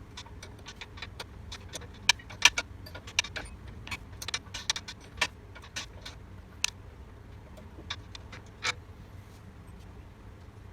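Irregular sharp metallic clicks and clinks of hand tools and small parts being worked on a cylinder mower during disassembly, a few louder knocks among the light ticks.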